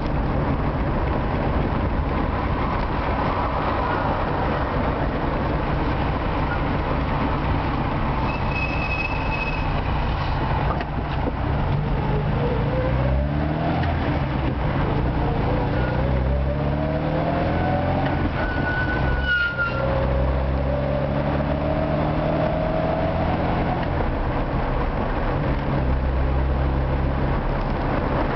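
An old Moskvich car's engine, heard from inside the cabin while driving in city traffic over steady road noise. Its pitch climbs several times as the car accelerates. About two-thirds of the way in there is a brief break, and the pitch drops back and climbs again, as at an upshift.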